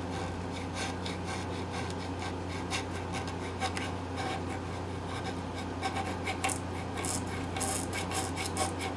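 A small metal file rasping against the bare wood inside a bass guitar's output-jack hole in quick, uneven strokes, roughing up the surfaces so hot hide glue can soak in.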